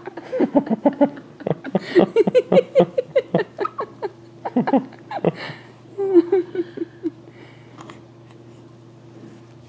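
Laughter in quick repeated bursts for about seven seconds, then it stops, leaving a faint steady hum.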